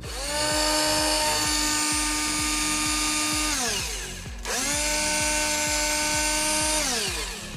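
Cordless drill running free on a newly fitted motor matched to its 12 V battery, triggered twice. Each time a whine climbs quickly to a steady pitch, holds for about three seconds, then falls away as the motor coasts to a stop. It runs evenly, free of the odd noise of an overvolted motor.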